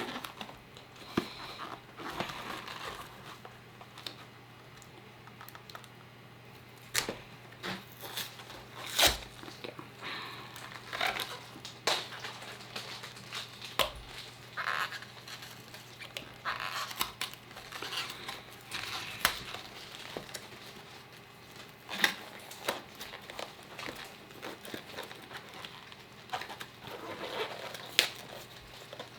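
Topps Chrome Update hanger boxes being opened by hand: cardboard and pack wrappers tearing and crinkling, with scattered sharp clicks and rustles.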